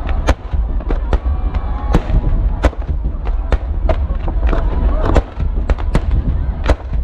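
Fireworks display: aerial shells bursting in rapid succession, sharp bangs about three a second over a continuous deep rumble of booms.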